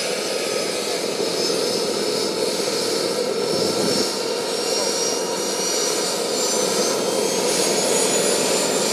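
JetCat PHT3 model turboshaft turbine running in a model helicopter during its start-up, a steady rushing with a high whine that slowly rises in pitch as it spools up.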